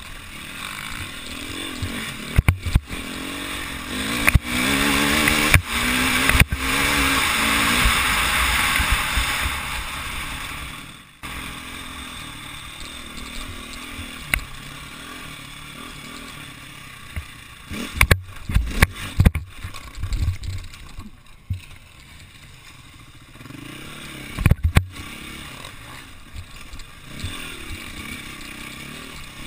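Enduro motorcycle engine heard from the rider's onboard camera, revving in rising pulls that are loudest for the first ten seconds, then dropping off sharply about eleven seconds in. The engine runs on more quietly after that, with sharp knocks and clatter from the bike over rough ground, twice in the later part.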